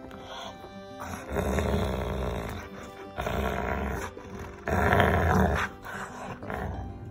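Labrador growling in play while tugging on a rope toy: three rough growls of about a second each, the last the loudest. Background music plays underneath.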